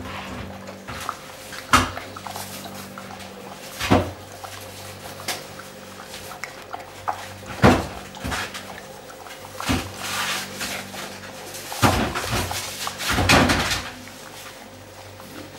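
A dog eating out of a bowl on a tiled floor: irregular knocks and clatters of muzzle and food against the bowl, single sharp ones at first, then a busier run of them near the end. A faint steady hum lies underneath.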